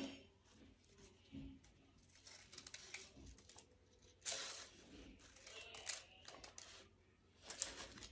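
Scissors snipping through folded paper, cutting fringe strips: a few faint, short cuts, the loudest about four seconds in.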